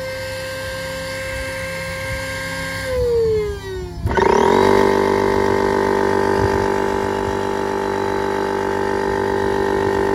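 Higmar 12-volt high-pressure electric air pump running as it tops off an inflatable boat to about 5 PSI. Its steady whine sags in pitch about three seconds in, then a second later changes abruptly to a lower, fuller running note that holds steady.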